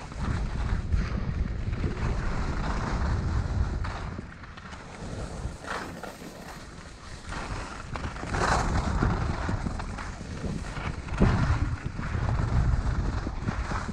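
Wind buffeting a GoPro Hero 6 action camera's microphone while skiing downhill, with skis hissing and scraping over packed, chopped-up snow. The rumble swells and eases, quieter for a few seconds in the middle, with a few brief, sharper scrapes as the skis turn.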